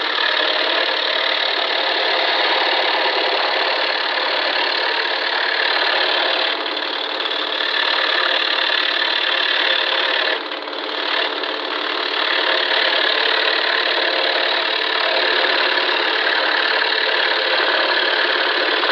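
Scroll saw running with its blade cutting through wood, a steady mechanical buzz that briefly eases twice.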